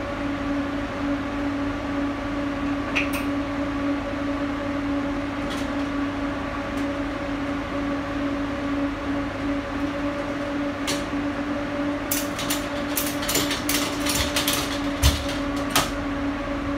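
Steady machine hum with a held low tone, like a fan or cooling unit running. From about twelve seconds in, a run of sharp metallic clicks and clatters comes from hooks being worked along the overhead hanging rail, with a couple of louder knocks near the end.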